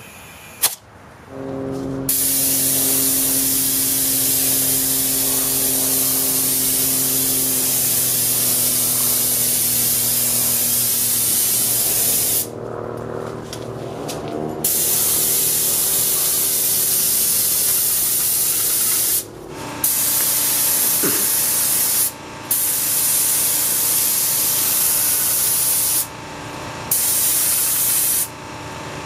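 Gravity-feed paint spray gun hissing in five long bursts with brief pauses as its trigger is pulled and released. Underneath, the Campbell Hausfeld DC080500 oil-free quiet compressor hums steadily. A sharp click comes just before the hum starts, about a second in.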